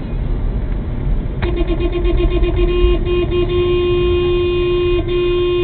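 Car horn sounded in several quick taps about a second and a half in, then held in a long blast with one brief break, over steady road and cabin rumble. It is a honk at a vehicle stopped ahead at a green light.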